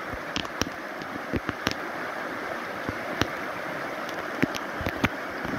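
Shallow rocky stream rushing steadily over stones, with scattered sharp clicks and knocks throughout.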